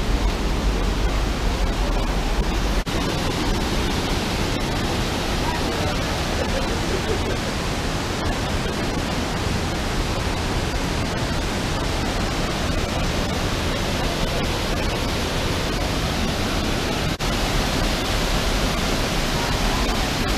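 Steady rushing of water from a creek's cascades and small waterfalls flowing through a rock gorge.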